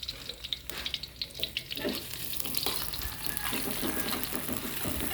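Sliced shallots frying in hot oil in a pan, sizzling and crackling; the sizzle grows denser about two seconds in.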